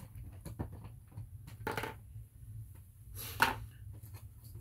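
Light knocks and handling noises of plastic action figures being moved and set down on a tabletop, with one sharper knock about three and a half seconds in.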